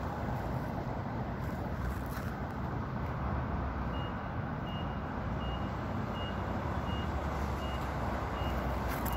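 A vehicle's reversing alarm beeping faintly and evenly, a little more than once a second, starting about four seconds in, over a steady low rumble.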